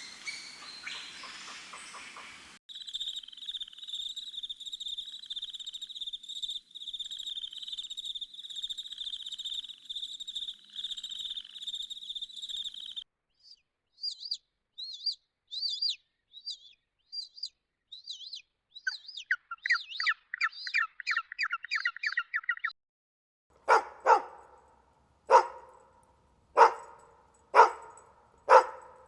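A run of animal sounds: a chicken clip ending in the first couple of seconds, then a bird chirping rapidly and steadily for about ten seconds, then another bird's short chirps turning into fast trills. After a brief gap, a dog barks five times, about one bark a second.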